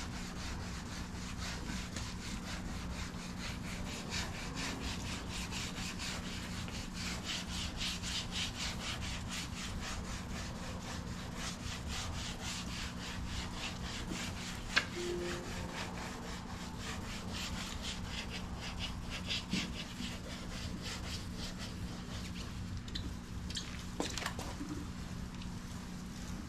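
Sandpaper being rubbed back and forth by hand over the painted bumper, a continuous run of quick scraping strokes.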